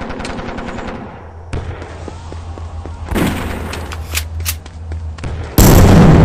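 War sound effects: a fast rattle of gunfire in the first second, a few scattered shots in the middle, then a sudden, much louder explosion about five and a half seconds in.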